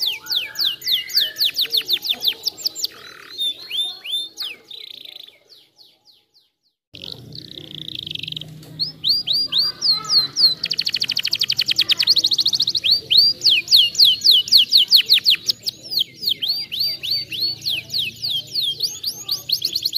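Domestic canary singing: long runs of rapid, repeated falling whistled notes and fast trills. The song cuts out for about a second near the six-second mark, then resumes with a very fast rolling trill.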